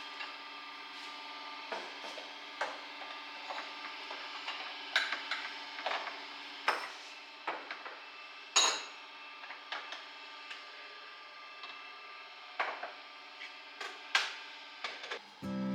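Irregular clicks, taps and knocks of household items being handled and set down, over a steady hum.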